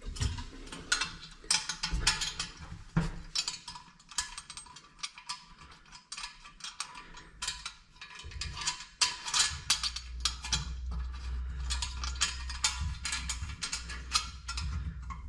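Quick irregular runs of sharp mechanical clicks from a hand tool as a bolt is worked tight, with a low rumble under the second half.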